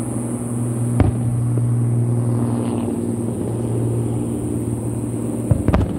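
Aerial firework shells bursting: a sharp bang about a second in and two more in quick succession near the end, over a steady low rumbling hum.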